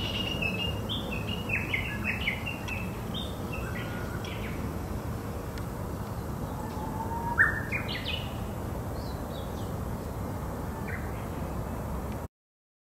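Small songbirds chirping and calling in many short, quick notes over a steady low background rumble; the sound cuts off suddenly near the end.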